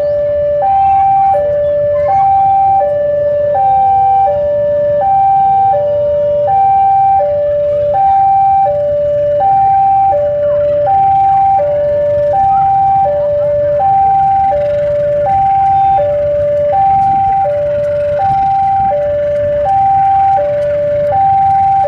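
Railway level-crossing warning alarm sounding a steady two-tone chime: a high and a low note alternate, each about half a second long, without a break. Beneath it runs the low steady rumble of a diesel locomotive's engine.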